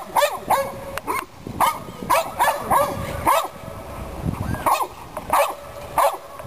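A dog barking repeatedly: about a dozen short, sharp barks in quick runs of two to four, with brief pauses between the runs.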